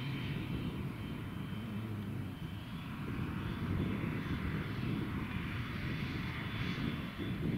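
Diesel engine of a John Deere tracked tractor running steadily under load as it pulls a seed drill, a continuous low drone.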